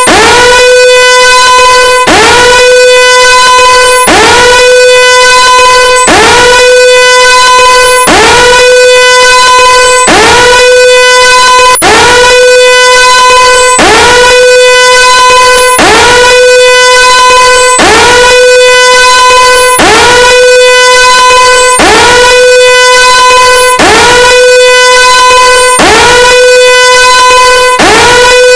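Old TV's no-signal siren sound, loud and annoying: a tone that swoops up in pitch and then holds steady, restarting about every second and a half.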